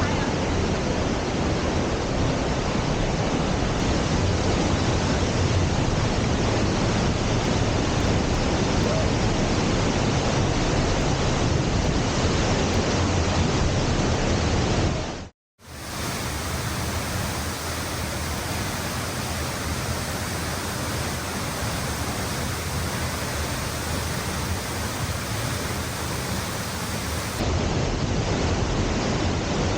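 Steady rushing roar of a waterfall, with no distinct beats or tones; it drops out abruptly about halfway through and comes back with a slightly thinner sound.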